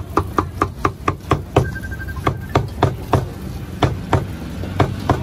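Cleaver chopping on a chopping block: quick regular strokes, about four a second, then slower with short pauses after about two seconds.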